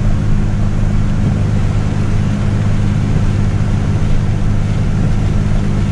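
Pickup truck driving at a steady speed, heard from inside the cab: an even engine hum under constant road and tyre noise.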